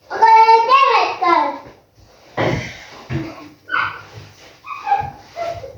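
A child's high-pitched voice: a drawn-out call for the first second and a half, then short bursts of talk.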